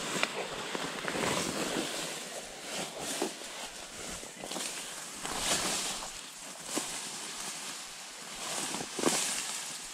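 Tall riverbank grass rustling and brushing close against the microphone, with a few sharper clicks and knocks from handling, the loudest about nine seconds in.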